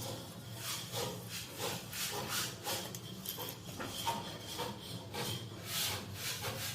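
Repeated rasping, scraping strokes, about two a second and somewhat uneven, as from a hand tool rubbed back and forth on a fitting during plumbing work.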